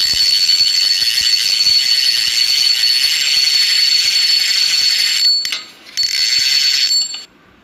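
Channel logo intro sound effect: a loud, dense, high-pitched mechanical rattle over a steady high ringing tone. It drops out briefly about five and a half seconds in, comes back, and stops about seven seconds in.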